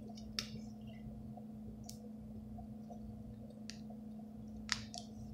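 A few light, sharp plastic clicks as a lanyard clip and a small plastic safety pendant are handled and fitted together, over a faint steady hum.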